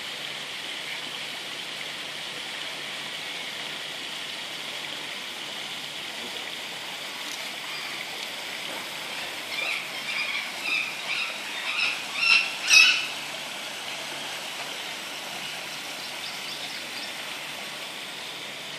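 Steady rush of running water. About ten seconds in comes a run of about seven short high calls, roughly two a second, each louder than the last.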